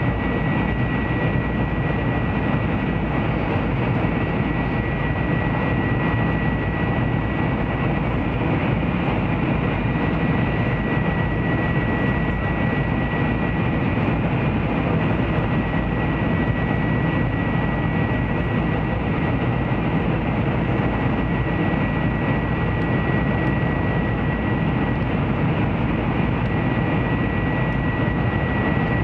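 Steady rumble and rush inside the passenger cabin of a Taiwan High Speed Rail 700T bullet train running at speed. A thin, steady high whine sits above the noise throughout.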